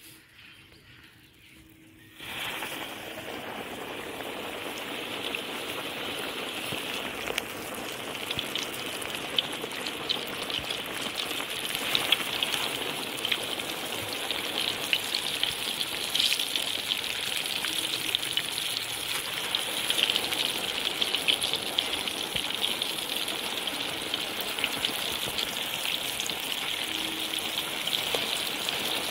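Flour-battered chicken pieces deep-frying in a wok of hot oil: a dense sizzling crackle that starts abruptly about two seconds in and keeps on steadily, with sharp pops scattered through it.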